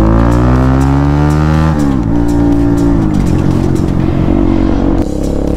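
Bajaj Pulsar NS200's single-cylinder engine on a loud, bassy aftermarket Akrapovic exhaust, accelerating on the move. The pitch climbs for under two seconds and drops sharply at a gear change, then holds and falls again, running lower and less evenly as the throttle eases.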